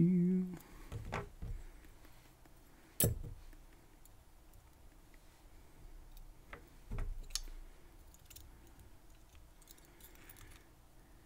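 Small metal lock pins and tools clicking and tapping while a padlock core is taken apart. There are a few sharp clicks, the loudest about three seconds in and a cluster around seven seconds, with faint ticks between.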